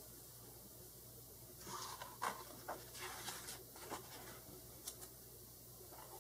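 A paper page of a picture book being turned by hand: a quiet run of rustles and crinkles starting about a second and a half in and dying away after about five seconds.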